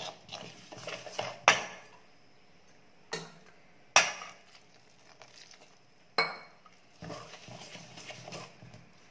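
Steel ladle stirring rice flour in a stainless steel bowl as hot water is worked in for idiyappam dough: soft scraping with four sharp metallic clinks against the bowl, the one about six seconds in ringing briefly.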